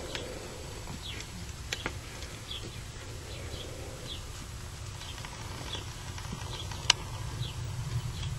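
Quarter horse gelding walking on a dirt arena, its hoofbeats soft and muffled on the loose ground, with a few sharp clicks and a steady low rumble underneath.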